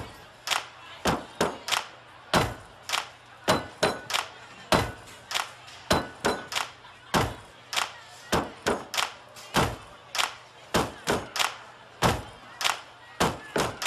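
An irregular series of sharp knocks, about two a second, each dying away quickly.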